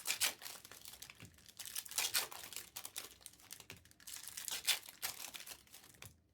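Foil trading-card pack wrappers crinkling in irregular bursts as the packs are handled and torn open.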